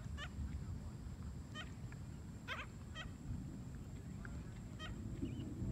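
Gulls giving about six short, harsh calls at uneven intervals, over a steady low rumble.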